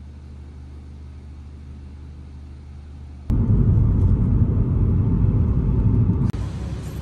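A quiet low hum, then about three seconds in a sudden cut to the loud, low rumble of a car driving, heard from inside the car.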